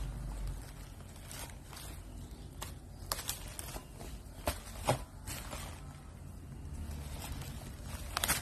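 Hands handling a cardboard box of oil pastels and packaging over bubble wrap: a string of irregular sharp clicks and taps over a low rumble of handling noise, with a quick cluster near the end.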